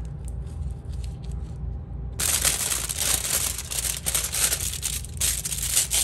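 About two seconds in, aluminium foil starts crinkling and rustling as a strip of it is handled and folded, a dense crackle that jumps in loudness.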